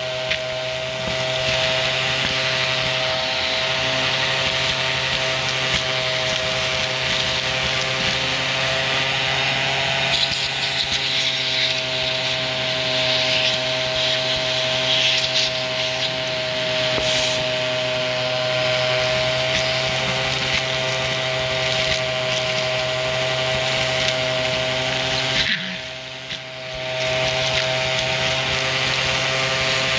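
Vacuum cleaner running steadily with a motor whine and a rush of suction air, a few faint crackles of debris being picked up. Near the end the suction noise briefly drops away, then comes back.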